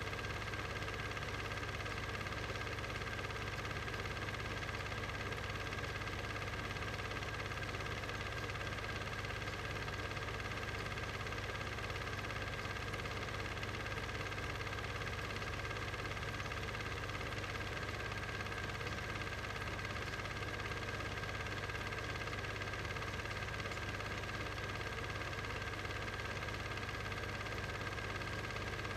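Steady, unchanging machine hum with a constant higher whine, like a motor running, and no sound of the game itself.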